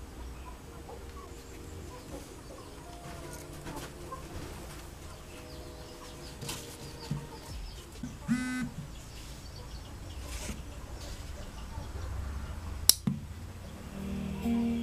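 Low steady hum with faint ticks and taps from handling the amplifier rig and phone; a short chirping sound about eight seconds in, and one sharp click near the end, the loudest sound.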